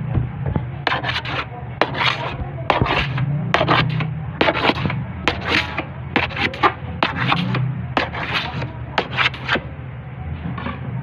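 Dough cutter scraping and chopping against the work table in quick repeated strokes, about two or three a second, as a log of bread dough is cut into portions of about 55 grams.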